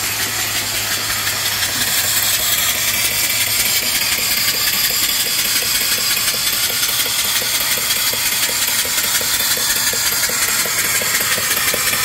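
Live steam hissing steadily from a fire-tube boiler while a small mill steam engine runs with a light, even rhythmic beat. The electric feed-water pump's low hum cuts off about two seconds in.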